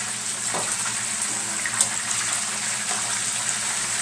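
Hot cooking oil sizzling steadily around flour-battered snapping turtle pieces frying in a skillet, a high, even hiss. One sharp click about two seconds in.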